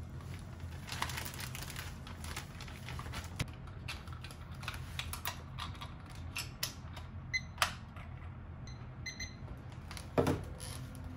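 Scattered clicks and taps of kitchen handling, then a few short high electronic beeps from a small digital kitchen gadget whose battery has run flat, and a thump near the end, over a steady low hum.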